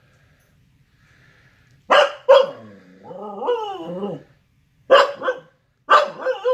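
Siberian husky barking and grumbling in an annoyed warning at another husky that is pestering it to play. Two short sharp barks come about two seconds in, then a wavering, whining call of about a second. Two more barks follow about five seconds in, and a last bark near the end runs into another wavering call.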